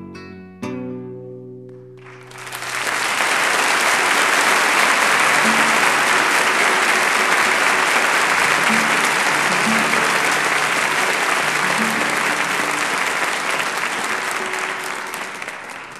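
The last plucked notes of an acoustic guitar ring out and decay, then a concert audience breaks into loud, sustained applause about two seconds in. The applause fades slightly toward the end.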